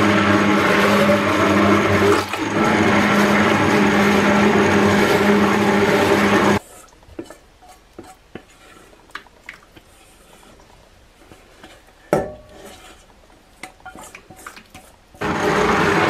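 Handheld stick blender running in a steel pot, mixing a lye-and-milk solution into soap oils. It dips briefly about two seconds in and is switched off after about six and a half seconds. Then come quieter scrapes and clinks of a spatula on a steel bowl with one sharp knock, and the blender starts up again near the end.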